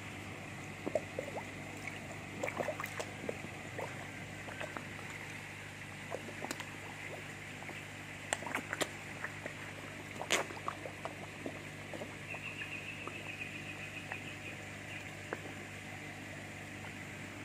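Koi crowding at the pond surface, splashing and slurping with their mouths: irregular small splashes and sucking pops, bunched in a few spells, over a steady low hum.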